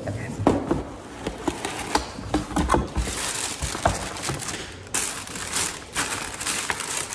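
A cardboard shoe box being handled and opened, with sharp knocks and scrapes. About three seconds in, this gives way to crinkling and rustling of the paper wrapping as the boots are pulled out and unwrapped.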